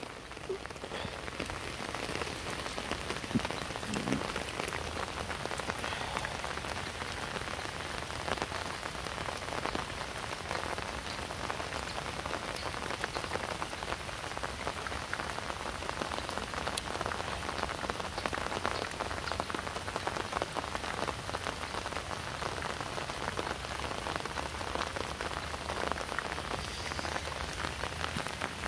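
Heavy rain falling steadily on water and ground, a dense even hiss of many small drop hits.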